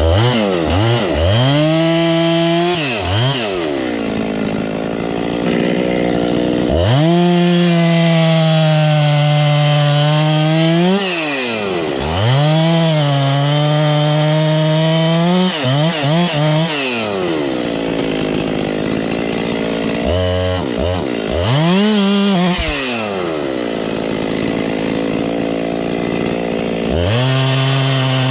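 Two-stroke chainsaw cutting firewood from a downed tree. It revs up and holds at full throttle through each cut for several seconds, then drops back toward idle between cuts, several times over.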